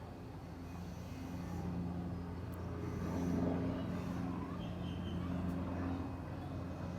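Helicopter running overhead: a steady low drone with a few held tones that swells about three seconds in and then eases slightly.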